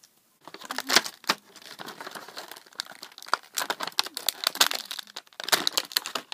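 Plastic toy packaging crinkling and crackling as it is handled, a dense run of irregular crackles that starts about half a second in and stops just before the end.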